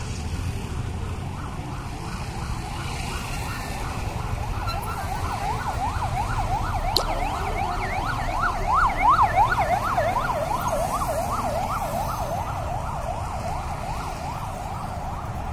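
Emergency-vehicle siren in a fast up-and-down yelp, about three sweeps a second. It comes up out of a low street rumble, is loudest a little past halfway and then fades as it goes by.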